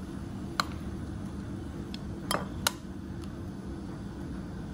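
Kitchenware clinking against glass mixing bowls: one short clink about half a second in and two close together about two and a half seconds in, over a steady low hum.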